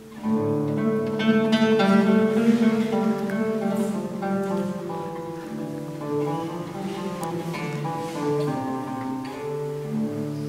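Live music with an acoustic guitar: a slow melody of held notes that comes in suddenly just after the start and is loudest in the first few seconds.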